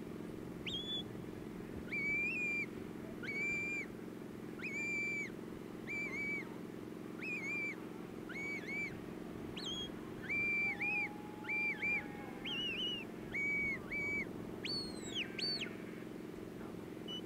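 Sheepdog handler's whistle commands directing the working dog: a long series of short, sharp whistled notes, some held flat and some bending up or down, with two high rising whistles near the end.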